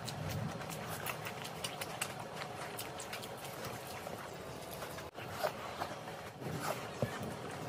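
Close-up eating sounds of a person chewing mutton curry and rice: many short, wet mouth clicks and smacks.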